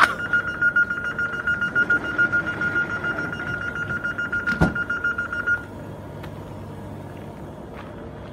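Door-closing warning on an SNCF Régio2N electric train: a rapid high beeping, about five beeps a second, as the doors shut. A single thump comes about four and a half seconds in, the beeping stops about a second later, and the standing train's low steady hum carries on.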